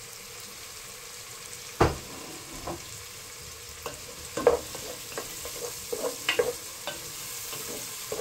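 Diced tomatoes and onion sizzling as they fry in hot oil in a granite-coated pot. From about four seconds in, a wooden spoon knocks and scrapes against the pot as the mixture is stirred. A single sharp knock about two seconds in is the loudest sound.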